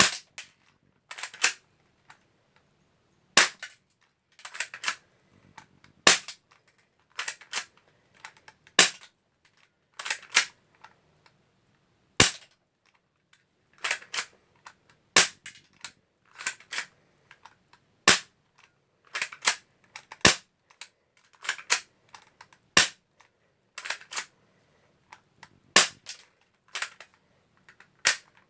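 A BB pistol firing shot after shot at a homemade metal target, a sharp crack about every second, many of them coming as a quick pair of cracks.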